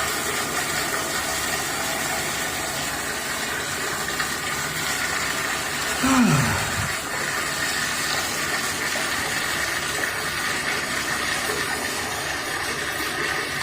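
Public restroom toilet flushing on and on without shutting off, a steady rushing of water. About six seconds in, a short louder sound falls in pitch over it.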